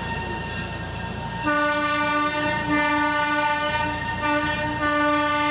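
A train horn sounds about a second and a half in, as a chord of steady notes. It gives four blasts, long, long, short, long: the grade-crossing signal.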